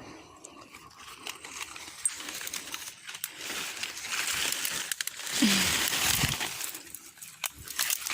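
Rustling and crackling of dry vegetation, building toward the middle, with scattered sharp clicks.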